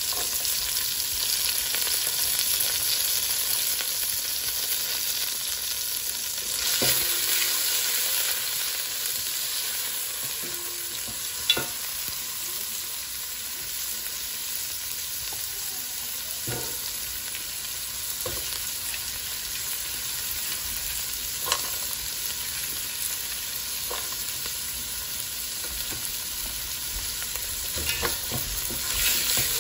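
Diced carrots and peas sizzling in hot oil in a nonstick pan, stirred now and then with a silicone spatula that scrapes and taps against the pan, with one sharp tap about a third of the way in.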